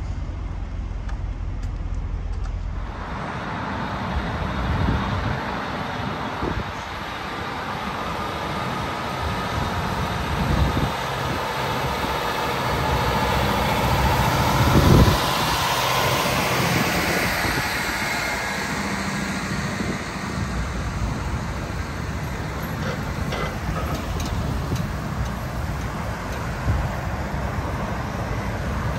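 Road traffic running steadily, with one vehicle passing close about halfway through, its pitch falling as it goes by.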